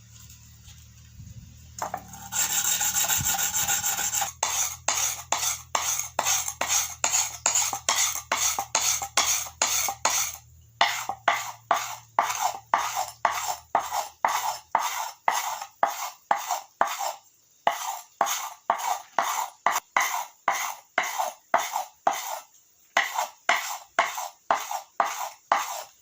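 Steel blade of a rubber tapping knife being sharpened with quick back-and-forth abrasive strokes, about two a second, with a few short pauses.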